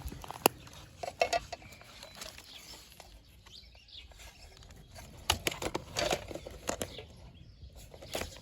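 Irregular clicks, taps and light clinks of small hard objects being handled, with a few sharper knocks about a second in and again five to seven seconds in.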